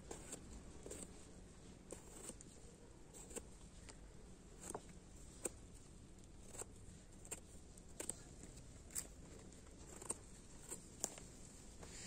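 Knife peeling an eggplant over a wooden cutting board: faint, irregular small clicks and taps, roughly one a second, as the blade strips the skin and the peel pieces drop onto the board.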